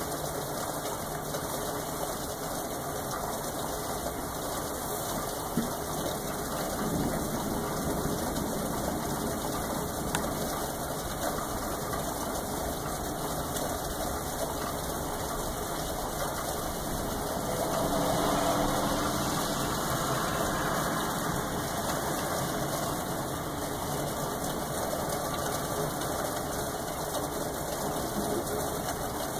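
Steady rain falling as an even hiss, with a few faint taps and a louder swell lasting a few seconds about two-thirds of the way in.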